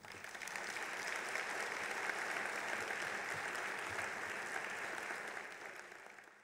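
Audience applauding a lecture, building up over the first second, holding steady, then dying away near the end.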